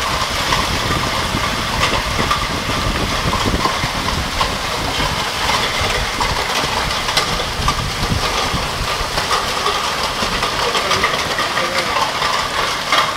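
Heavy, wind-driven hail of golf-ball size, about 4 to 5 cm, pelting down: a steady rush of noise packed with sharp, rapid hits.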